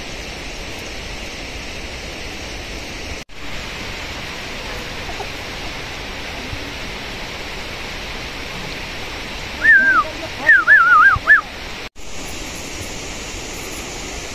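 Steady rushing of water in the monsoon rain, cutting out sharply twice. About two-thirds of the way through, a short run of high, warbling whistles rises and falls above it.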